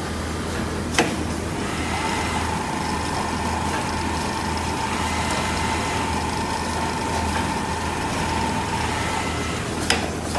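Richpeace automatic sewing machine running: a steady mechanical hum, with a sharp click about a second in and another near the end, and a faint steady tone from about two seconds in to about nine.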